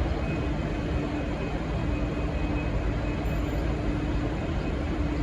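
V/Line N class diesel locomotive idling at the platform: a steady engine rumble with a constant low hum.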